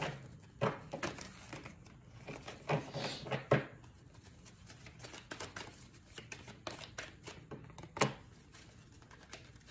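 Tarot cards being handled and shuffled: irregular papery clicks and rustles, with sharper snaps about a second in, around three seconds in and near the end.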